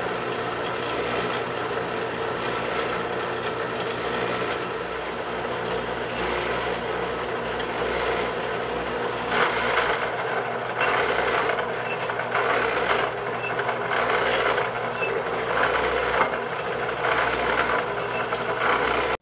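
Metal-cutting bandsaw running, its blade sawing through thick rusty steel plate: a steady motor hum under the rasp of the blade in the cut. In the second half the cutting noise swells and eases about once a second.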